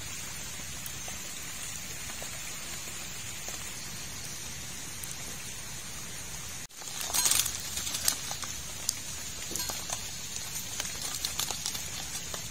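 Steady rain falling on standing swamp water, an even hiss. About seven seconds in it cuts abruptly to closer, irregular crackles and rustles over the rain, from a plastic snack bag being handled.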